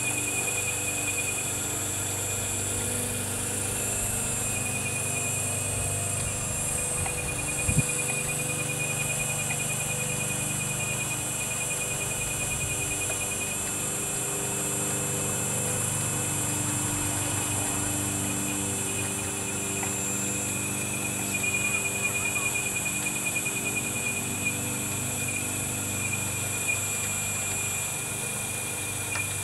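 1:16 scale model Liebherr 944 demolition excavator working its hydraulics and turning its turret: a steady whine over a low hum, with a single sharp click about eight seconds in and a slightly pulsing stretch in the last third.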